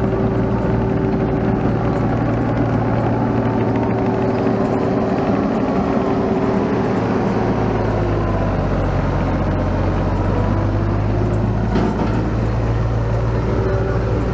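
Kubota mini excavator's diesel engine running steadily close by, its sound deepening a little about halfway through.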